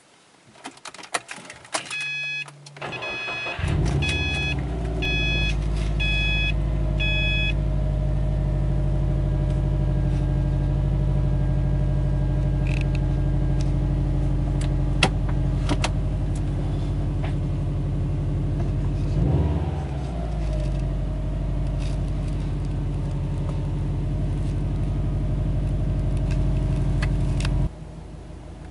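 Key clicks and a warning chime beeping about once a second, then the 2011 Subaru Impreza WRX's turbocharged flat-four starts about three and a half seconds in and idles steadily. The engine cuts off about a second before the end.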